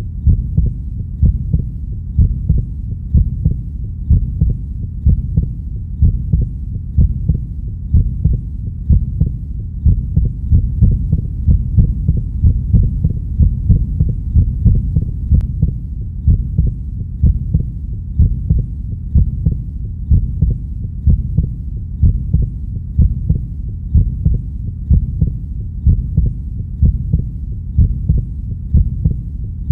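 Heartbeat recording: a steady, even rhythm of low, muffled thumps over a continuous low hum.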